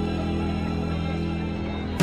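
Music with long held notes.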